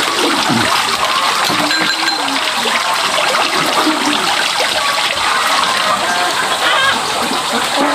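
Water rushing and splashing steadily, with faint voices in the background.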